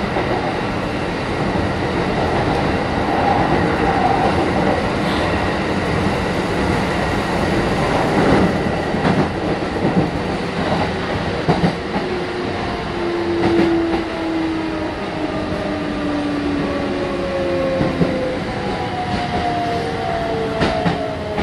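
Kintetsu 1420 series electric train running, heard on board: a steady wheel-on-rail rumble with scattered rail-joint clicks. From about halfway through, the whine of its inverter-driven traction motors sounds as several tones that fall steadily in pitch as the train slows.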